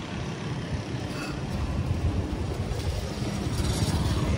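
Motor scooters running along a wet street, a low engine rumble that grows louder after the first second or so.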